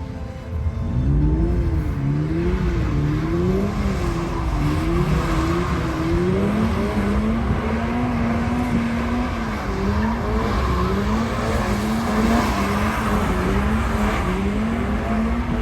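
Toyota GR86's naturally aspirated flat-four engine running hard, its revs climbing about a second in and then rising and falling roughly once a second, over steady tyre noise.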